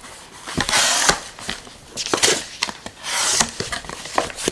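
A cardboard box being opened and handled, its flaps rubbing and scraping, in two longer scraping stretches about half a second in and about three seconds in, with small knocks between.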